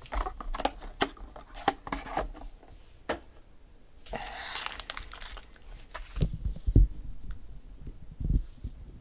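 Foil-wrapped Bowman Chrome baseball card packs crinkling and clicking as they are handled and pulled from their cardboard box, with a rustle about four seconds in. A few dull thumps follow between six and eight and a half seconds in as packs are set down on the table, the loudest near seven seconds.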